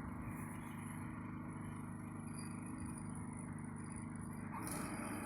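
Gas snowblower engine running steadily, with a little more noise and loudness near the end.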